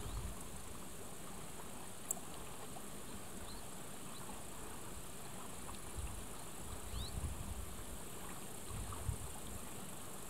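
A steady high insect chirring, with wind buffeting the microphone in low rumbles that come and go, stronger about six to eight seconds in. There is a single sharp tick about two seconds in and a few faint short high chirps.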